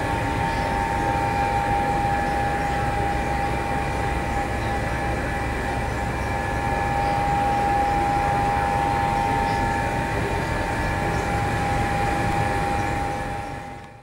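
Large cabinet egg incubator running: a steady mechanical hum over a low rumble, with a high-pitched tone held at one pitch, fading out near the end.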